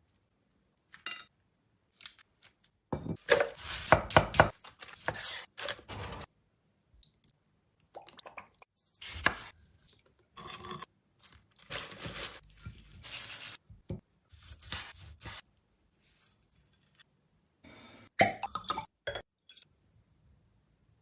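Kitchen cooking sounds in a series of short separate clips: utensils knocking and clinking against dishes and pans, with scraping, each clip cut off abruptly.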